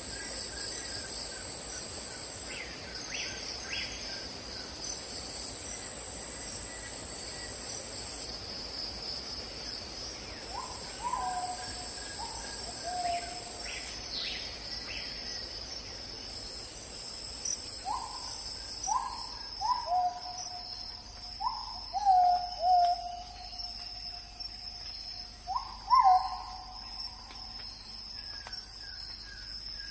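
Steady high-pitched insect chirring with a bird calling repeatedly over it, each call a short note that drops in pitch and holds, the calls coming in groups and loudest in the second half.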